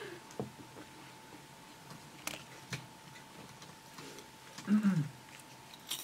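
Quiet studio room tone with a faint steady tone, a few light clicks, and a short, low hum-like vocal sound about five seconds in.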